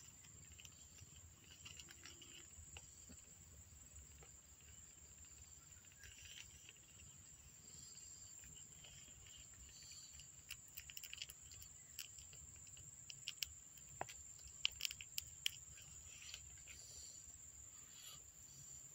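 Near silence with faint, scattered soft clicks and smacks from young kittens suckling at their mother, most frequent in the latter half.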